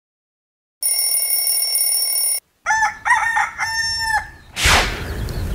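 A rooster crowing: a few short notes and then one long held note. Before it comes a steady high ringing tone of about a second and a half that stops abruptly, and a short rushing noise follows near the end.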